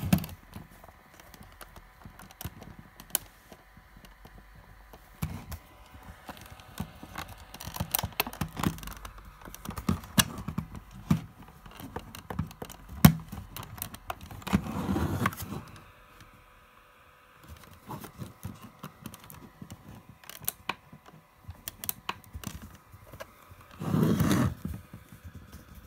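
Handling noise from a plastic novelty radio alarm clock: scattered clicks, light rattling and rubbing as it is turned and its controls are touched, with two dull knocks about fifteen and twenty-four seconds in.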